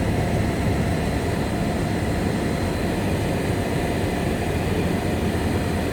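Steady road noise heard inside a moving car's cabin: a low, even rumble of tyres and engine.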